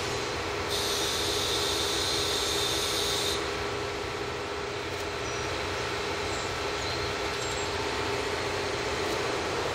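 Diesel express train running steadily, with a continuous drone. About a second in, a high hiss starts and lasts for roughly three seconds, then stops sharply.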